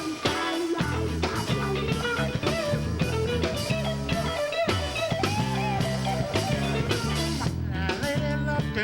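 Live rock band playing an instrumental break: a guitar lead line with bent notes over bass and drums.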